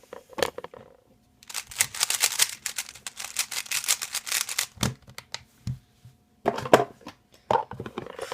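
Rubik's cube being turned fast by hand: a dense run of plastic clicks and clacks for about three seconds, then a short pause and another burst of turns.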